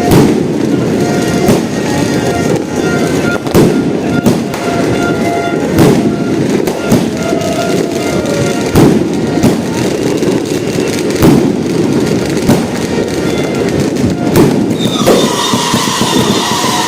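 188-shot fireworks cake firing continuously: a dense rumble of rapid bangs and crackle, punctuated by sharper louder reports every second or so. Near the end a high whining tone joins in.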